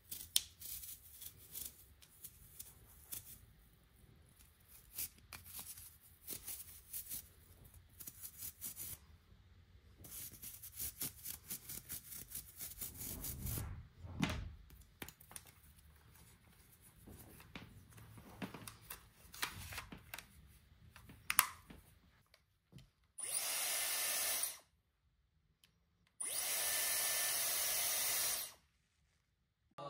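Clicks, scrapes and rubbing as the metal mesh filter cover of a Dyson Airwrap hair styler is handled and cleaned of dust. Near the end the Airwrap's fan is switched on twice, each time a steady blowing rush lasting a second or two, now that the dust clogging its filter has been cleaned out.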